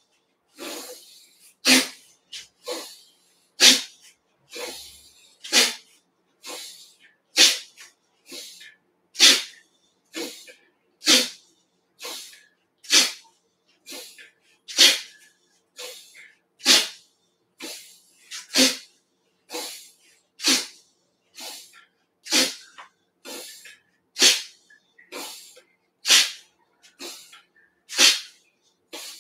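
A person breathing out forcefully and explosively through the nose, a sharp puff about once every two seconds with a softer breath between each, in a rhythmic Dao Yin breathing exercise.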